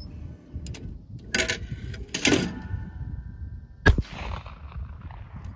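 A single 28 gauge shotgun shot from a CZ Teal over/under, a sharp report about 4 s in with an echo trailing off after it. Two shorter noises come before the shot.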